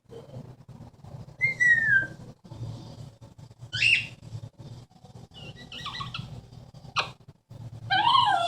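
Amazon parrot giving a series of short whistles and calls: a falling whistle about a second and a half in, a sharp call around four seconds, softer chirps after it, a single click at seven seconds, and a louder wavering call near the end.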